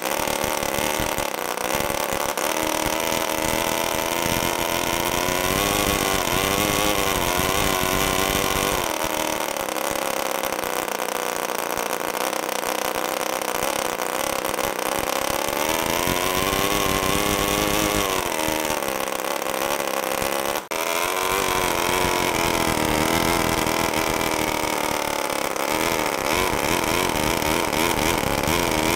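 NR-200 miniature water-cooled two-cylinder four-stroke gasoline engine running hard with a high, buzzing weed-whacker note. Its pitch rises and falls several times as it is revved up and down.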